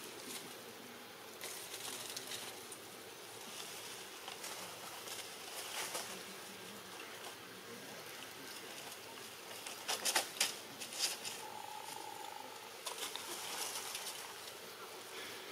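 Leaves and twigs rustling and pattering as a macaque forages through the undergrowth, with a quick cluster of sharp crackles about ten seconds in.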